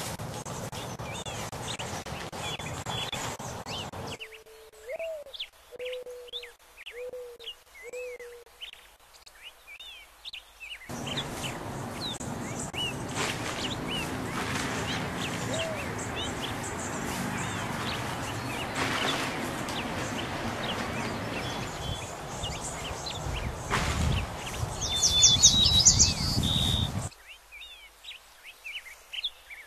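Small birds chirping and tweeting again and again, with a loud cluster of high chirps near the end. Long stretches of steady rushing noise come and go underneath.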